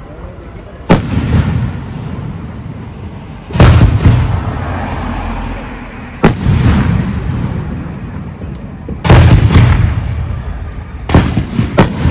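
Professional fireworks display: aerial shells bursting with loud booms every few seconds, each followed by a deep rolling echo, the bursts coming quicker near the end.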